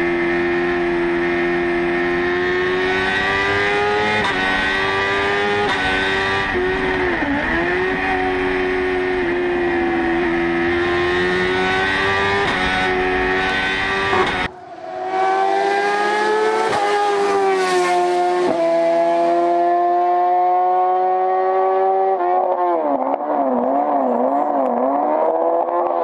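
The BMW S1000RR inline-four motorcycle engine of a Fiat 500 hillclimb car running hard at high revs under full throttle. The revs dip briefly about seven seconds in, and near the end they rise and fall repeatedly through shifts and corners. About halfway through the sound cuts abruptly to another recording of the same engine.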